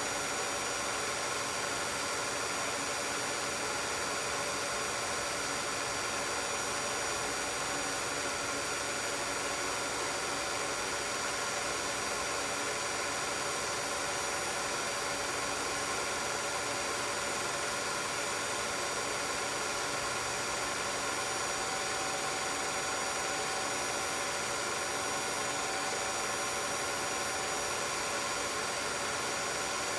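16mm film projector running: a steady whir and hiss with several steady high tones and no change in level.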